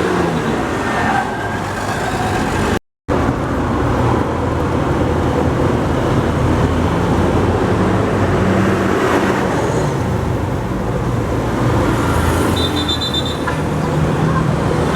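Steady roadside traffic noise from heavy road vehicles such as tour buses running past, with low engine rumble throughout. The audio drops out for a moment about three seconds in, and a short high-pitched tone sounds near the end.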